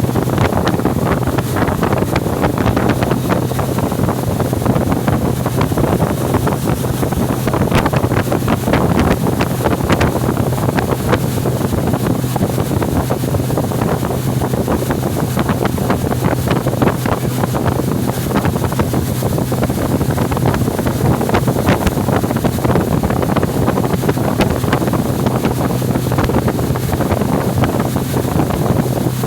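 Steady hum of a boat's motor running under way, with wind buffeting the microphone and water rushing.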